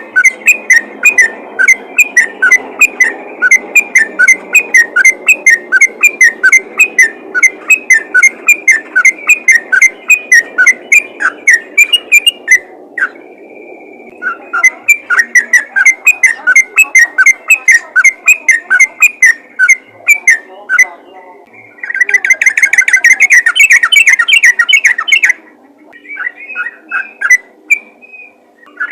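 Yellow-vented bulbul (trucukan) singing a rapid run of loud, whistled chirps, several a second. It breaks off briefly about 13 seconds in, then resumes and speeds into a denser trill about three-quarters of the way through before a few scattered notes.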